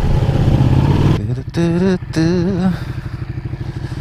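Ducati 1199 Panigale's twin-cylinder engine running under throttle, then backing off about a second in. It carries on at a lower level, with two short wavering tones near the middle.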